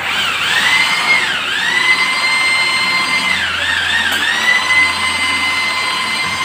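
Corded electric drill running with a steady high whine as it bores into the wall, the pitch sagging twice under load as the bit bites.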